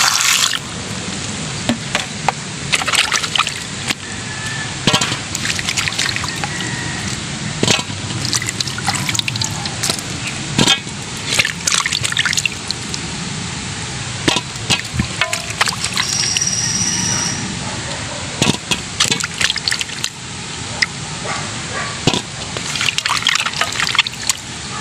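Water poured from a plastic dipper into a metal basin of husked corn cobs, stopping about half a second in, then water sloshing and splashing as hands rub and turn the cobs to wash them, with irregular knocks of cobs against each other and the basin.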